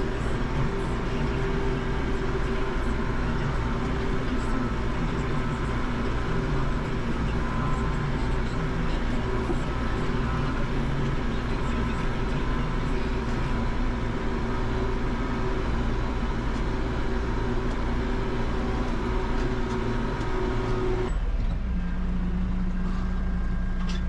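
New Holland 4030 tractor's diesel engine running steadily under load, heard from inside the cab while it drives along the hay windrows. Near the end the sound changes abruptly to a steadier, lower engine drone.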